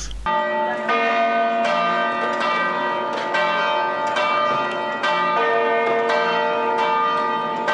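Cathedral bells of St Paul's Cathedral ringing a peal: several bells struck in turn about once a second, their tones overlapping and ringing on.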